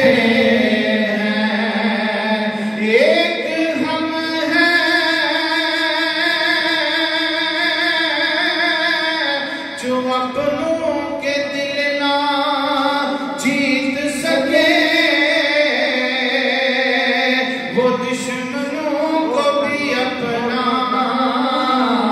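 A man's solo voice chanting a Punjabi kalam (devotional poem) in long, held melodic lines with a slight waver. There are brief breaks between phrases about ten and eighteen seconds in.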